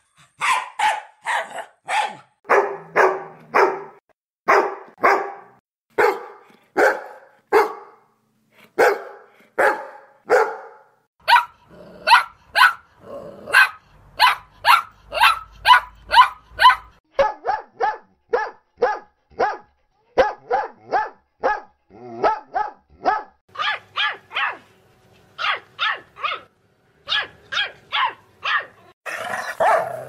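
Dog barking sound effects strung together: short single barks and quick runs of barks, the bark's pitch and character changing several times as one clip gives way to the next. About a second before the end a continuous rough sound takes over.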